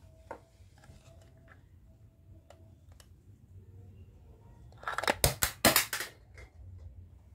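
Hard plastic toy fruit pieces being handled, with scattered light clicks and then a loud rapid cluster of clacks and rattling about five seconds in.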